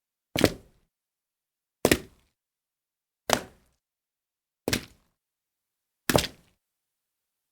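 A series of short water splashes, five in all, spaced about a second and a half apart, each dying away quickly with silence between.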